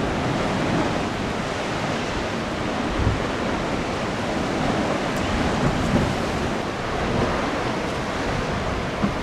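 Steady rush of sea surf washing against a rocky shore, with wind buffeting the microphone.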